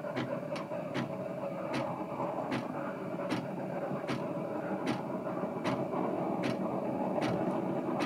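Steam wand of an Ascaso Dream Up thermoblock espresso machine heating milk in a stainless pitcher, wand tip held under the surface after the foaming: a steady hiss with regular clicks about twice a second.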